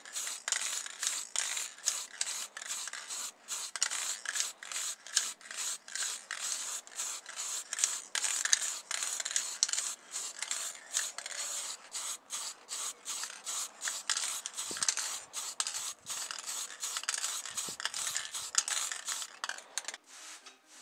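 Aerosol can of acrylic spray paint hissing in many short bursts, a few a second, as paint is sprayed onto a small plastic model car body; the spraying stops just before the end.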